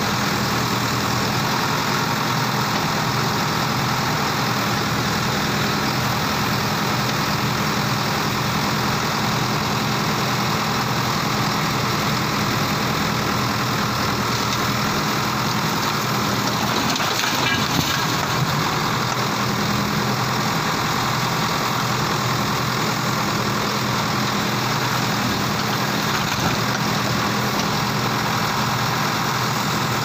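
Bull HD76 backhoe loader's diesel engine running steadily, with a short clatter a little past the middle as the brick wall gives way.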